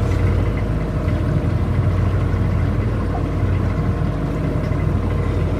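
Tour boat's engine running steadily, a low even hum.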